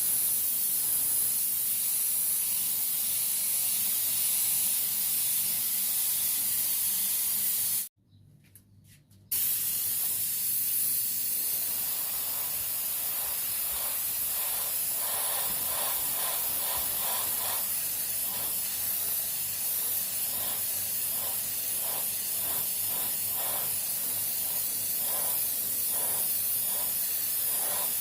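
Continuous spraying hiss that cuts off about eight seconds in, then starts again a second and a half later and runs on with a faint pulsing.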